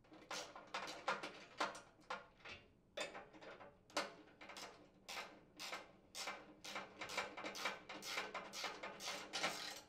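Hand ratchet and socket clicking in quick, uneven runs as mounting screws are driven into speed clips on the shredder's metal housing. The clicks come closer together in the second half.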